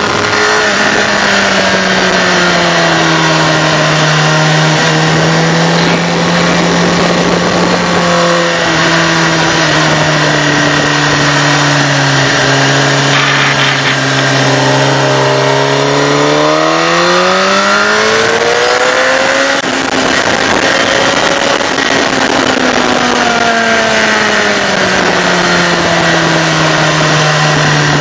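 Suzuki GSX-R sport bike engine heard from a camera behind the windscreen, with steady wind rush over the fairing. The engine note sags slowly, climbs sharply about two-thirds of the way through as the throttle is opened, then eases back down.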